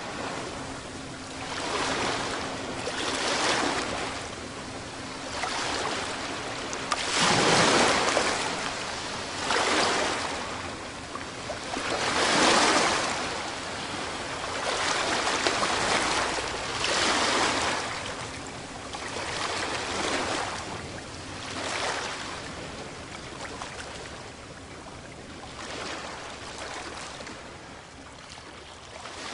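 Waves breaking and washing ashore, surge after surge every two or three seconds, the loudest swells about a quarter and about half of the way in.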